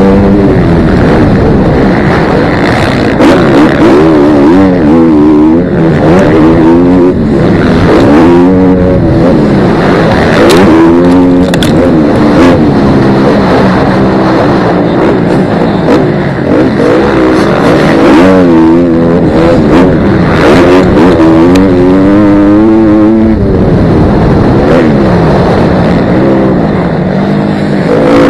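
Dirt bike engine revving hard and falling off again and again as the rider works the throttle and gears on a motocross track, heard close up from an onboard camera, with rushing wind noise over the microphone.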